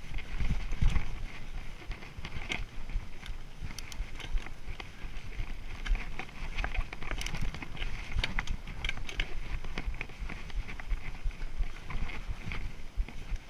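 Mountain bike ridden down a dirt forest trail: continuous tyre noise and rattling of the bike over the ground, with frequent sharp clicks and knocks and a steady low rumble.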